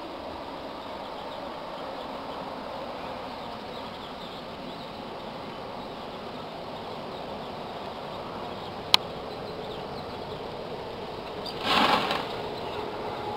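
Steady outdoor background rush, with one sharp click about nine seconds in and a short, louder burst of noise about twelve seconds in.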